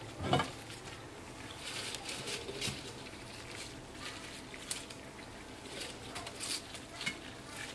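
Fresh curly lettuce leaves rustling and disposable plastic gloves crinkling as the leaves are handled and laid on a plate. A short thump comes about half a second in, followed by scattered light crackles.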